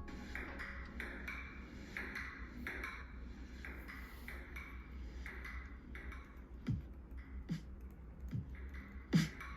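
Typing on a MacBook Pro keyboard: soft key taps at an uneven pace. About two-thirds through, deep drum thumps from music come in, about one a second.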